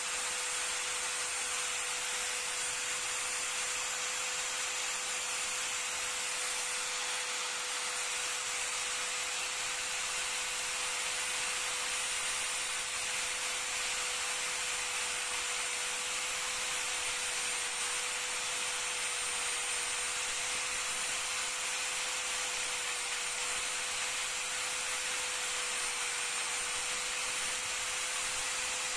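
Angle grinder running steadily with a constant whine, its cut-off disc grinding away the plastic housing of an ABS wheel-speed sensor.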